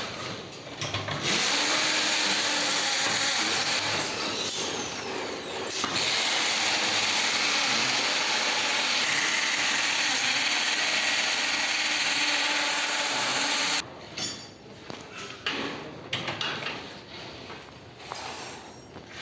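A power tool running in long stretches, easing off briefly about four seconds in and stopping abruptly about fourteen seconds in, followed by lighter irregular knocking and clatter.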